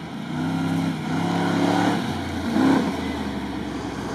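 Range Rover V8 engine revving hard under acceleration, its note climbing and dropping several times with the loudest surge near the end.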